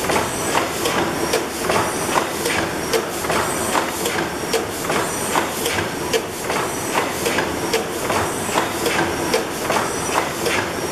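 600-horsepower Snow (Worthington) horizontal reciprocating natural gas engine running steadily: its rods and valve gear click and knock in an even rhythm over a constant hiss.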